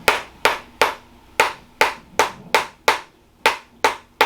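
Handheld chiropractic adjusting instrument firing again and again against the pelvis: a regular train of sharp clicks, two to three a second, with a couple of brief pauses.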